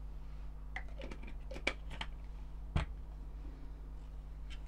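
A black plastic screw cap being handled and twisted back onto a bottle of acrylic paint, a run of small clicks and scrapes, then a single knock about three seconds in as the bottle is set down on the table.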